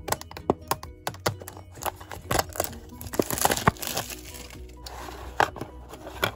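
Clear plastic wrapping crinkling and crackling as it is pulled off a small cardboard toy box, with sharp clicks and taps of the box and its plastic fence piece being handled. The crinkling is densest about three to four seconds in. Background music plays underneath.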